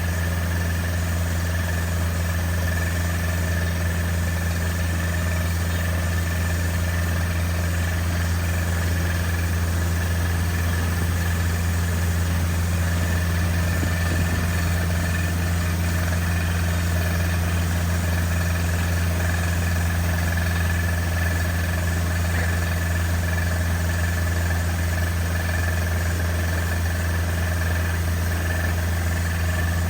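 An engine running steadily at a constant speed: a low, even hum with a faint high whine and no change in pitch or loudness.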